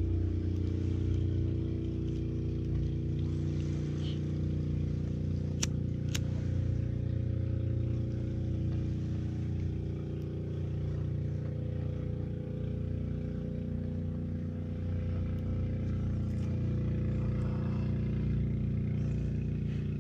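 Steady low drone of an engine running, with two sharp clicks about six seconds in.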